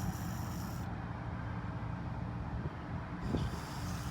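Aerosol carburetor cleaner sprayed lightly into a small two-stroke carburetor's passages: a short hiss ending about a second in and another near the end, over a steady low rumble.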